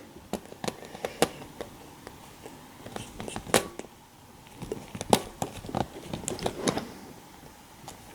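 Irregular light clicks and taps from small handling, about a dozen spread over several seconds.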